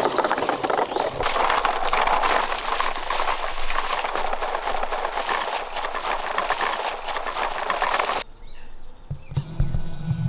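Plastic toy truck's wheels rolling over dry grass and fallen leaves, a dense steady crackling and rustling. It cuts off abruptly about eight seconds in, and a few low thumps follow near the end.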